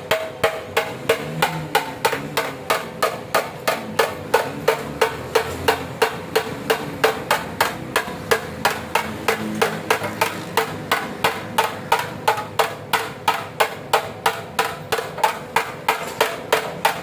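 Hammer blows on the sheet metal of a Honda CG 125 motorcycle during dent repair: a steady, even run of about three to four strikes a second, with the metal ringing after each one.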